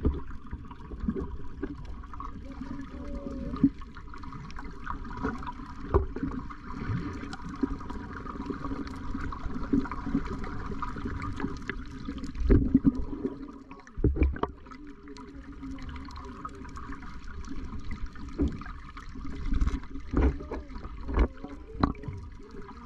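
Muffled water noise picked up by a camera held underwater, with a few dull thumps along the way.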